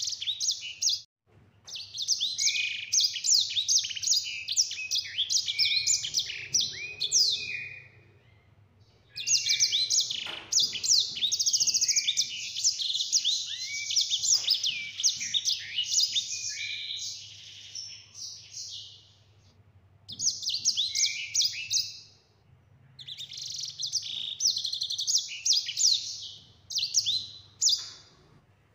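Caged sanger finch singing in long, fast rolling phrases of high chirps, trills and sweeping whistles, broken by a few short pauses: the continuous 'gacor' song kept as training song for other birds.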